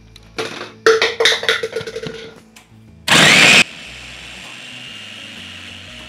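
Electric chopper (Mitochiba CH200) blending whole tomatoes, shallots and garlic into a puree. Knocking in the first two seconds and a loud burst about three seconds in, then a steady motor whir.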